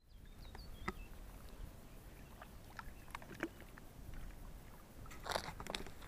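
Faint scattered clicks and knocks as a small RC speedboat is handled at the water's edge, then two short splashy bursts near the end as the hull is set into the water.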